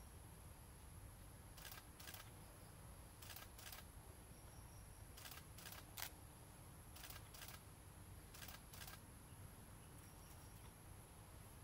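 Near silence: faint outdoor background with short, paired ticks repeating about every second and a half, over a faint steady high tone.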